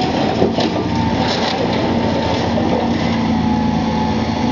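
Hydraulic demolition excavator running steadily under load, its diesel engine and hydraulics working, with a few brief cracks of concrete rubble in the first second and a half.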